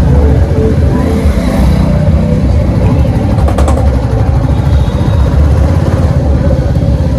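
Motorcycle engine running while under way, a steady, loud, low, fast-pulsing rumble.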